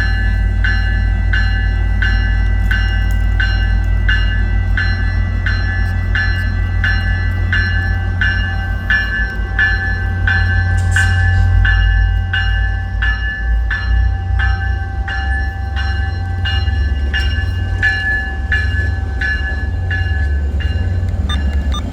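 A bell rings steadily, about two and a half strikes a second, over the low rumble of the departing Tri-Rail commuter train.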